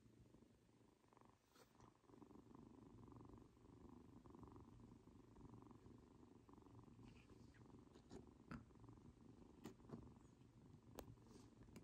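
Tabby kitten purring faintly and steadily while being stroked under the chin, with a few faint clicks in the second half.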